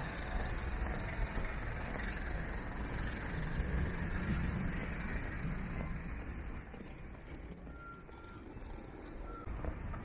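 Steady rumble of road traffic that eases off near the end, with two short high electronic beeps late on, like a vehicle's reversing alarm.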